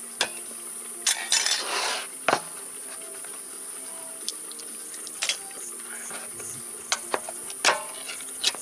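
Hand can opener working around the rim of a tin of sweetcorn: scattered sharp metallic clicks, with a short burst of scraping about a second in.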